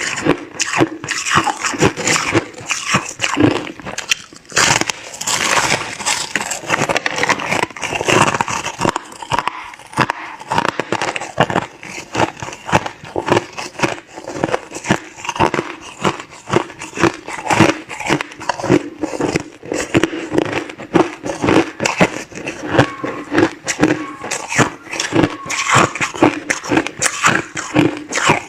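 Crushed clear ice being chewed close to the microphone: a rapid, continuous run of crisp crunches and cracks.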